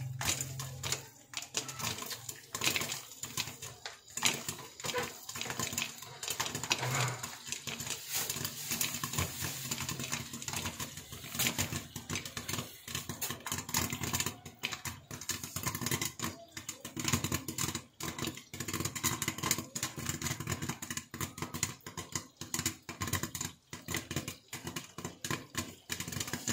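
Popcorn kernels popping in a covered steel pot with a glass lid: a dense, continuous run of sharp pops.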